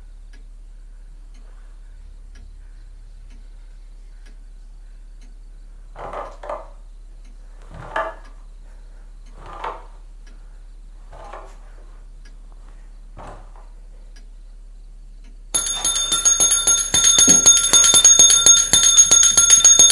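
A few soft, widely spaced sounds, then, about fifteen seconds in, a small handbell is shaken fast and hard in a loud, continuous jangling ring.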